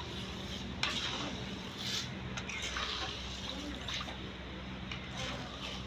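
Metal ladle stirring and scooping broth in a wok, with the liquid sloshing and dribbling back off the ladle into the pot.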